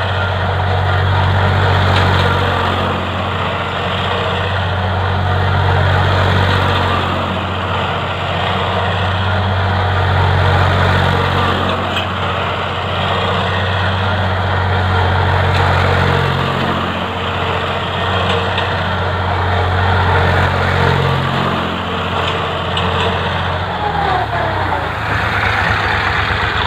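HMT tractor's diesel engine running steadily as it drives in circles over spread rice straw to thresh it, the sound swelling and fading every four or five seconds as the tractor comes round. The engine note drops lower near the end.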